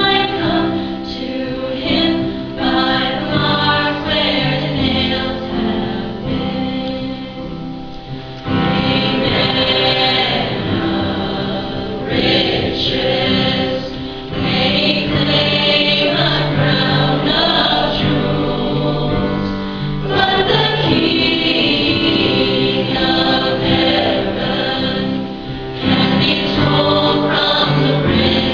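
High school choir singing a hymn arrangement in several parts, with sustained chords and phrases that swell and ease.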